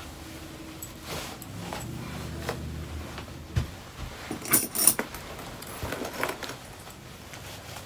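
Clothing rustling and handling noise, with a brief cluster of sharp metallic jingling clicks about four and a half seconds in.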